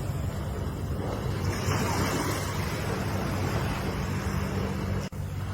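Ocean surf: waves washing onto the shore in a steady rush that swells and eases, cutting out for an instant near the end.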